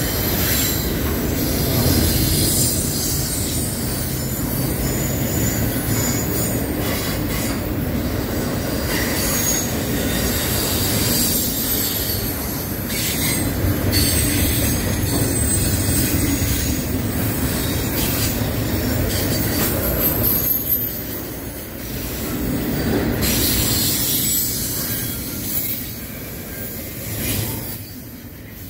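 Double-stack intermodal well cars rolling past on a curve: a steady rumble of steel wheels on rail with high-pitched wheel squeal and some clickety-clack. It eases off somewhat near the end.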